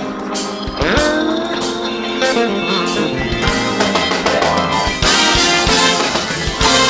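Funk band playing live: electric guitar over a drum kit, with a few sliding guitar notes. The band gets louder and fuller about five seconds in.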